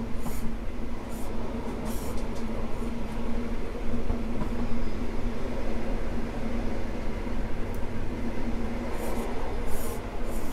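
CrossCountry High Speed Train (InterCity 125) running along the line: a steady rumble and hum of the moving train, with a brief high hiss now and then.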